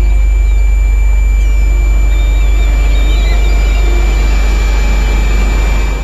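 A loud, steady low hum with a thin, even high-pitched whine over it, and faint bird-like chirps above. It cuts off suddenly at the end.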